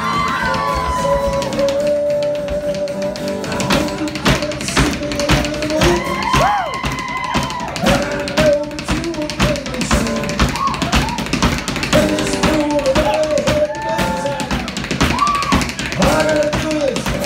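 Irish dance music playing, with rapid percussive Irish step-dance beats clattering in time throughout. Someone in the audience shouts at the start.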